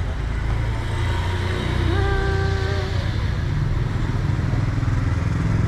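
Street traffic: a steady low engine rumble of passing motor vehicles, motorcycles among them. A short held tone rises and holds for about a second, around two seconds in.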